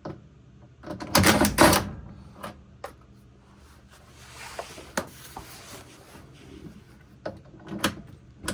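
Metal lower shield of a washing machine being handled and fastened with a 5/16 driver: a loud clatter about a second in, then a few scattered clicks and knocks.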